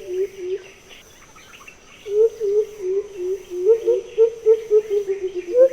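Blue-headed coucal calling: a series of low hooting notes, about three to four a second, breaking off for about a second and a half shortly after the start and then resuming. A steady high insect trill runs underneath.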